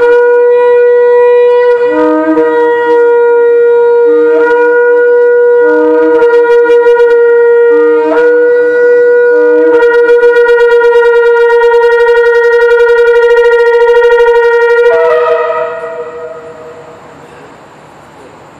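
Two shofars blown together, one a long twisted horn. One holds a long steady note while the other sounds a series of shorter, lower blasts beneath it. Near the end the held note wavers, then both stop about fifteen seconds in, leaving a short echo fading under the concrete deck.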